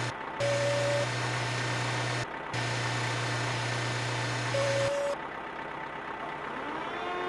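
Truck engine sound effect, a steady rumbling noise that cuts off abruptly twice and stops about five seconds in, with a short beep near the start and another just before it stops. Near the end a set of rising tones settles into a steady hum.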